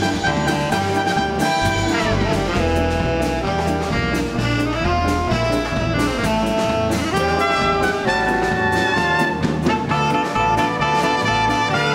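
A live big-band dance orchestra playing a Latin number, with trumpets, trombones and saxophones over a steady rhythm section; a few notes slide in pitch.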